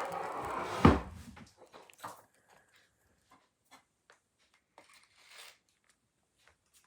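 Rough rustling or scraping handling noise ending in a single heavy thump about a second in, followed by scattered faint clicks and taps and a brief soft rustle near the end.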